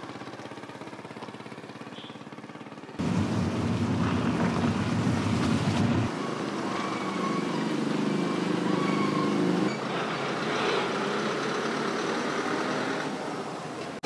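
A vehicle engine running steadily, the sound changing abruptly about three, six and ten seconds in as it jumps between short clips.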